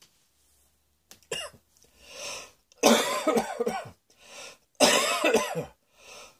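A person coughing: two fits of several rapid, voiced coughs lasting about a second each, with a breath drawn in before each fit and again near the end.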